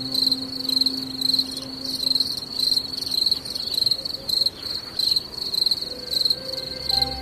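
An insect chirping: a high, steady chirp repeating about three times a second.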